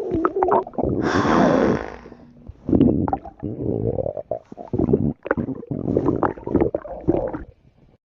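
Stomach growling: a run of irregular gurgles and rumbles, with a louder hissing rush about a second in. It cuts off shortly before the end.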